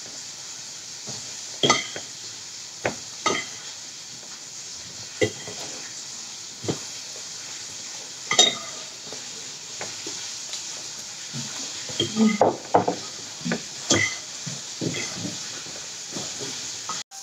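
Chicken frying in hot oil, a steady sizzle, with scattered clinks and scrapes of a utensil against the pan as the pieces are turned.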